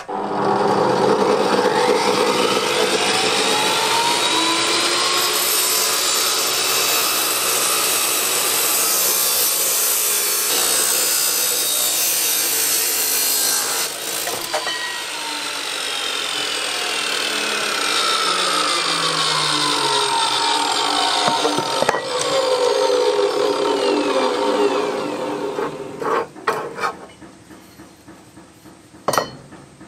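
A 2300 W, 356 mm abrasive metal cut-off saw cutting through steel pipe, its pitch sagging and recovering as the blade bites, with a brief dip about halfway. A few seconds before the end the saw runs down and stops, followed by a few sharp knocks.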